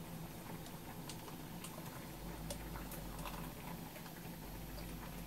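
Faint, scattered ticks and light crackles from a thin egg-white omelette cooking on low heat in a frying pan, with chopsticks touching the pan, over a steady low hum.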